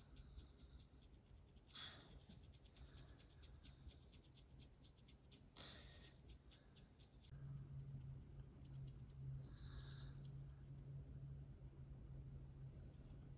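Long artificial fingernails scratching a dandruff-flaked scalp: fast, faint scratching with a few slightly louder strokes, over a low steady hum that grows louder about halfway through.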